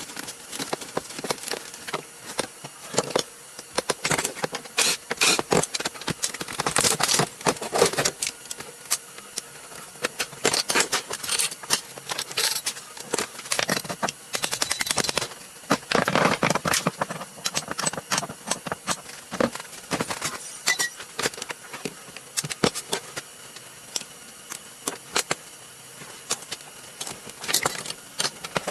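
An old Craftsman string trimmer being taken apart by hand: hand tools and plastic and metal parts clicking, knocking, rattling and scraping at irregular intervals.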